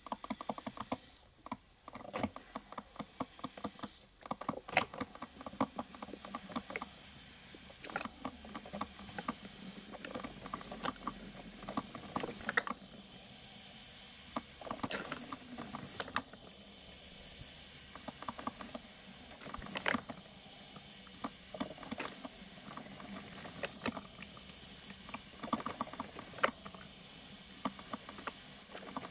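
Coffee machine brewing: irregular runs of rapid crackling and sputtering clicks, over a faint steady high whine.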